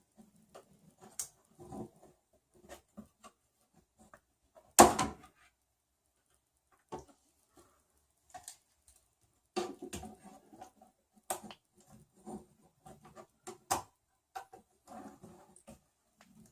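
Scattered small clicks, taps and knocks from handling plastic 3D-printer parts and hand tools during assembly. One sharp, louder knock comes about five seconds in, with a busier run of clicks around ten seconds.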